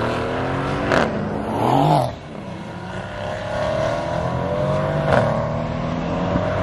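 Aston Martin Vantage's engine accelerating away, with an upshift about two seconds in, then another car's engine approaching, rising steadily in pitch. Two short sharp cracks, about a second in and near the end.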